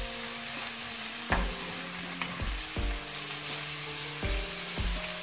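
Sliced onions and bay leaves sizzling steadily in hot oil in a frying pan while being stirred with a wooden spatula, the onions frying slowly towards light brown. Background music with held notes and a slow, even beat plays underneath.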